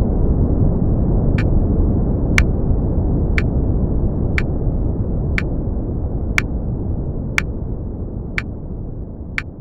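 Brown noise fading out gradually, with a short tick once a second counting down the final seconds of a study timer.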